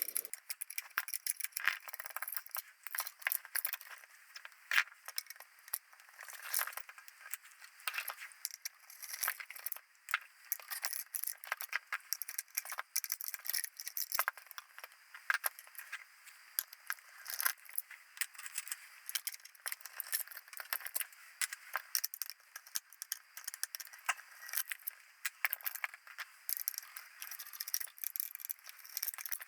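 Hand tools and small metal parts clicking, scraping and rattling in a steady stream of irregular taps while a small metal electronics case is being taken apart.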